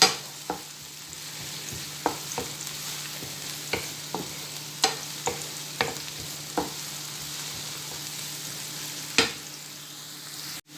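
Diced onion sizzling in oil in a frying pan as it is stirred, with the stirring utensil knocking against the pan about a dozen times at irregular intervals.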